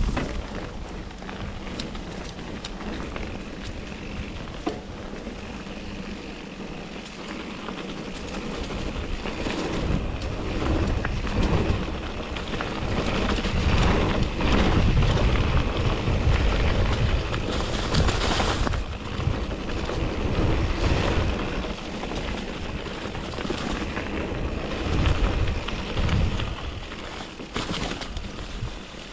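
Mountain bike riding down a dirt singletrack: tyres rolling over the ground with frequent clicks and rattles from the bike, under wind rumble on the microphone. The rumble grows louder from about ten seconds in and eases near the end.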